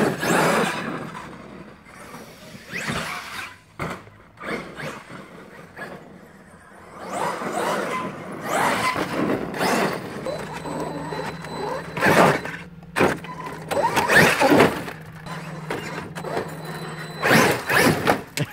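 Large RC monster trucks being driven hard: motor whine rising and falling in repeated bursts of throttle, several seconds apart. A steady low hum runs from about ten seconds in until near the end.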